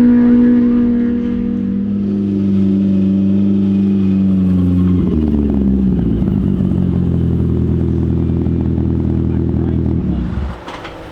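Side-by-side UTV engine running under load, its revs sinking slowly, then dropping again about five seconds in and holding steady before the sound falls away near the end.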